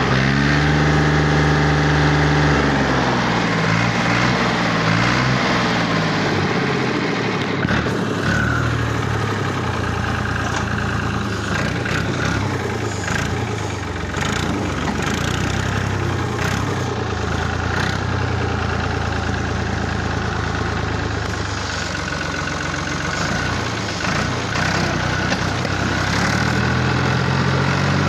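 Fiat Al-Ghazi tractor's diesel engine running while the tractor drives. The engine pitch drops over the first couple of seconds, there are rattles and knocks through the middle, and the pitch rises again near the end.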